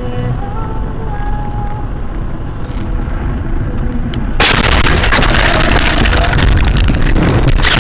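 Head-on car collision inside a car's cabin, picked up by a dashcam: about four and a half seconds in, a sudden, very loud crash overloads the microphone into a harsh, continuous noise that lasts several seconds. Before the impact, the car radio plays over a steady road rumble.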